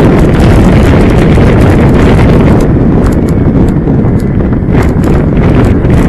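Loud wind buffeting the microphone on a moving motorcycle: a dense low rumble of wind and road noise. The upper hiss eases after about two and a half seconds, leaving a few sharp crackles.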